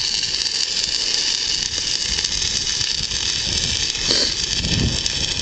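Steady, crackling hiss of an electric arc cutting steel pipe with welding rods.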